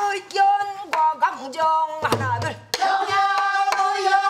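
Pansori singing in a woman's voice, holding long, steady notes and shifting pitch every second or so. A couple of strokes on a buk barrel drum come about two seconds in.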